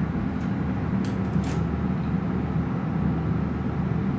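Dell OptiPlex 780 desktop's cooling fans running with a steady whirring hum, while the machine sits powered on but failing to boot, with a couple of faint clicks about a second in.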